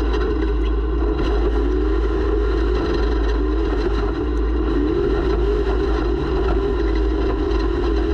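Racing snowmobile engine running hard, its pitch rising and falling as the revs change, with a heavy wind rumble on the camera microphone.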